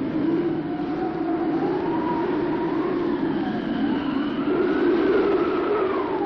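Mountain wind howling: a steady low rush with a whistling tone that rises and falls in pitch, climbing highest about two thirds of the way through.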